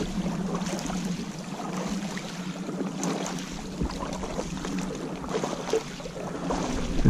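Boots wading slowly through shallow water along a path of broken ice, splashing and sloshing, with a few light clicks and knocks of ice pieces.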